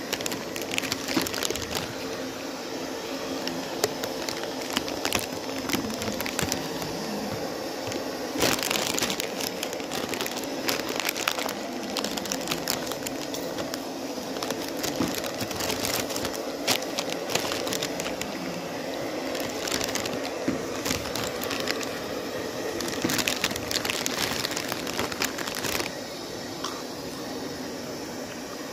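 A hand-held electric hair dryer running steadily, drying long wet hair. Frequent sharp crackling clicks sound over it and thin out near the end.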